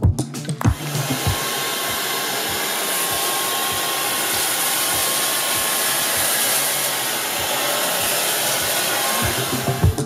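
Proscenic P10 Pro cordless stick vacuum running steadily, starting about a second in and stopping near the end.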